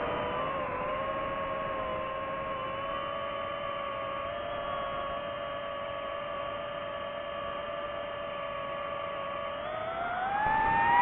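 DJI FPV drone's motors and propellers whining at a steady pitch in cruise, the pitch and loudness rising near the end as the throttle increases.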